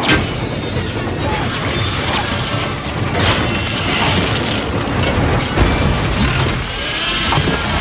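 Film battle sound effects: explosions, crashing and grinding metal, with sharp blasts near the start, about three seconds in and about five and a half seconds in.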